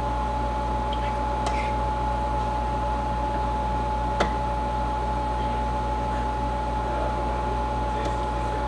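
Electric ice cream maker's motor running steadily with an even hum, churning ice cream in its freezer bowl. A click about four seconds in.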